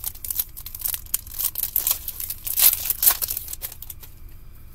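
Foil trading-card pack wrapper being torn open and crinkled by hand: a dense run of crackling for about four seconds that then dies away.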